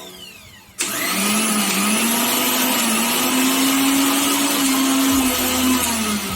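750-watt Ktech mixer grinder's motor: winding down at the start, switched on again about a second in with a sudden whine, running at a steady high speed for about five seconds, then switched off and winding down near the end.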